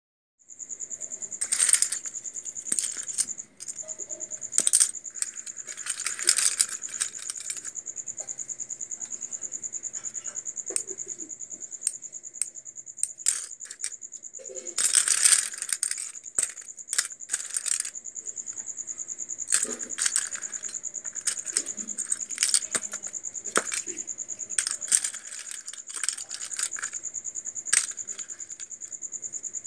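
White plastic Anchor switch and socket fittings clicking and clattering against one another as a hand picks through the pile, in irregular clusters with the loudest rattles near the start, around six seconds and midway. A steady high-pitched whine runs underneath throughout.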